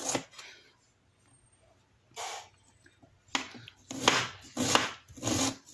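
Kitchen knife slicing through a red onion onto the cutting surface, dicing it: six separate cuts, one at the start, one a little over two seconds in, then four in quicker succession.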